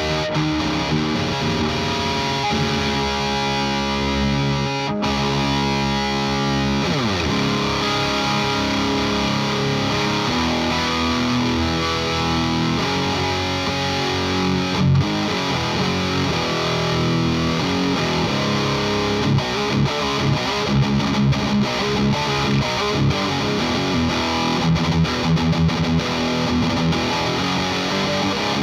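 Electric guitar with Mojo Tone Blackmagic pickups played through a distorted amp. Held, ringing chords and riffs come first, with a slide down in pitch about seven seconds in, and the second half turns into choppier, more rhythmic riffing.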